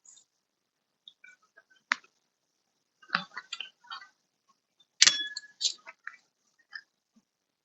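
Scattered clicks and light metallic knocks from hand tools and small parts being handled, a cluster of them about three seconds in and the loudest, a clink with a brief ring, about five seconds in.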